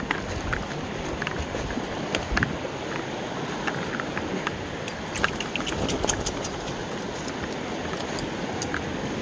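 Steady rush of a creek swollen by flooding rains, with scattered crackles of footsteps in dry leaf litter.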